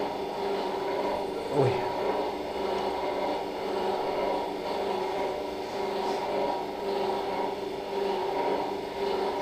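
Steady mechanical hum of operating-room equipment, with a single short knock about a second and a half in.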